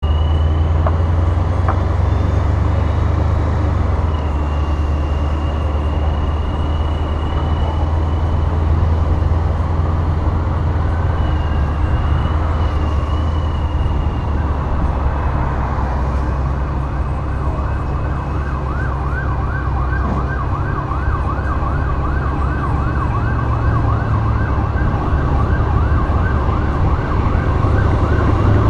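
Dodge Charger SRT8's Hemi V8 running with a steady low rumble while cruising. From about halfway, a siren sounds over it in a fast, repeating rising wail, about two sweeps a second.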